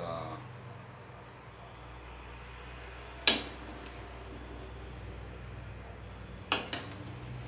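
A metal ladle knocks sharply against an aluminium cooking pot once, a little under halfway through, then clicks twice more quickly against the pot near the end. Crickets chirp steadily throughout.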